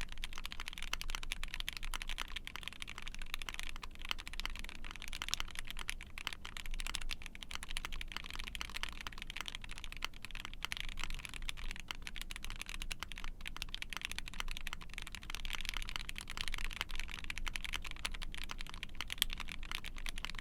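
Continuous fast typing on an ai03 Vega mechanical keyboard with a POM plate, 205g0-lubed Gateron CJ switches and GMK keycaps: a dense, steady stream of sharp key clicks with most of their energy in the upper mids.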